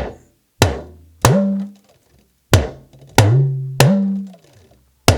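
Talking drum struck with its stick, about seven strokes in short groups. After several strokes the low note bends upward, holds, then slides back down as the drum's tension cords are squeezed and released.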